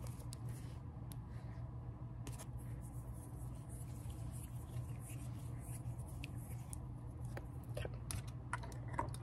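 Faint scattered taps and light rubbing from fingertips touching the recording phone as moisturizer is mimed onto the camera, over a steady low hum.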